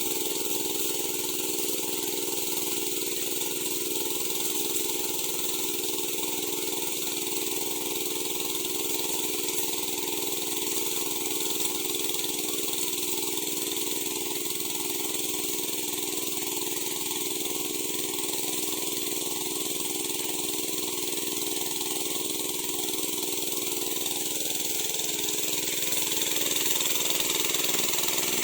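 Sanchin MS30 power sprayer's engine running steadily, with a steady high hiss over it; it gets a little louder near the end.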